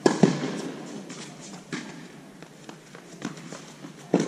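Tennis balls struck by racket strings and bouncing on an indoor hard court during a rally: sharp pops spaced a second or two apart, loudest at the start and just before the end, each with a short echo from the hall.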